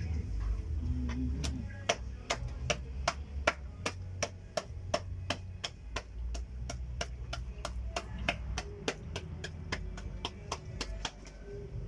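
A long, fairly even run of sharp taps or clicks, about three to four a second, over a low rumble; it starts a second or so in and stops near the end.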